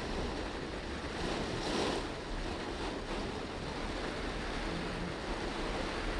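Heavy rain on a car and its tyres hissing on the wet road, heard from inside the car as a steady rushing noise that swells briefly about a second and a half in.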